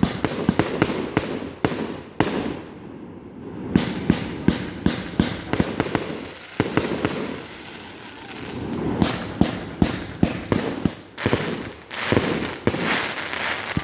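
Fireworks going off: many sharp bangs in quick succession, in bursts with short lulls between.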